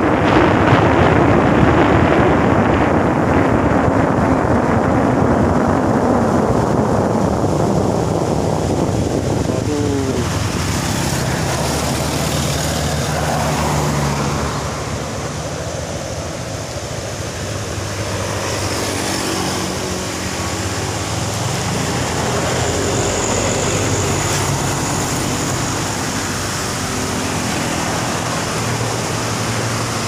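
Motorcycle riding along a road: wind rushing over the microphone along with engine and road noise, fading over the first several seconds as the bike slows. Then the engine runs steadily at low speed.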